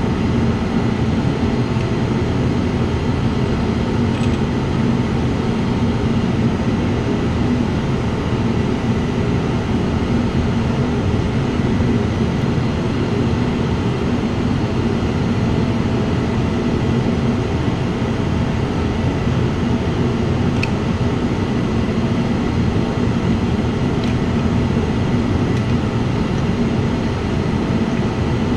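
Steady mechanical hum and rush that does not change, with a few faint clicks.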